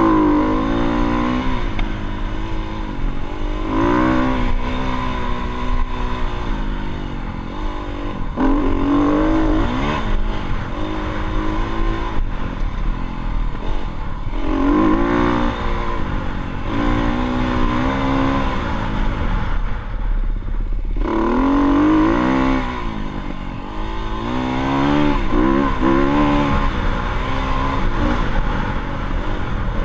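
Dirt bike engine revving while riding, its pitch climbing and dropping back again and again as the throttle is opened and closed.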